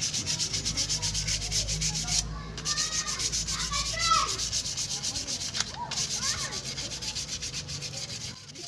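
Brake shoe lining from a Multicab's rear drum brake being sanded by hand with sandpaper: fast, even back-and-forth scraping strokes that pause briefly twice. The lining is still thick, and the shoe is being scuffed clean to be reused.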